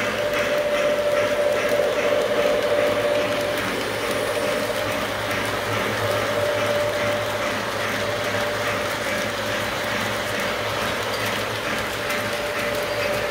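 Model freight train rolling past on three-rail track, its wheels clicking in a steady, rapid rhythm over the rails, with a steady whine running alongside.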